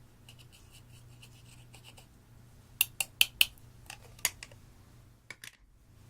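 Light scratching strokes, then a quick run of about seven sharp clicks and taps of hard objects over a couple of seconds, and two softer clicks near the end.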